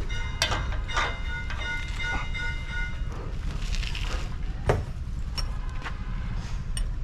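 Sharp metal clanks from truck wheel-hub parts and tools being handled, the first ones ringing on briefly and the loudest a little under five seconds in, over a steady low rumble.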